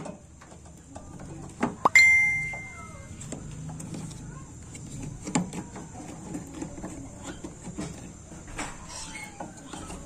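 Light clicks and rattles of wiring connectors being handled inside an opened microwave oven. About two seconds in comes one sharp metallic clink that rings for about a second.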